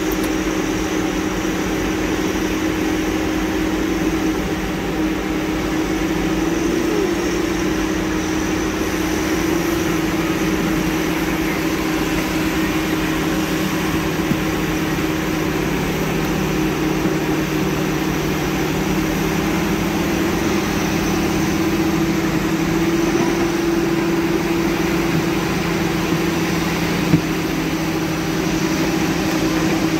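Diesel engine of heavy logging machinery running steadily at an even, low pitch, with one sharp click near the end.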